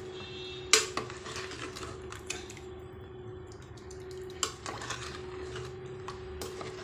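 A spoon stirring chicken curry in a cooking pot, clinking and knocking against the pot at irregular moments, with one sharper knock about a second in.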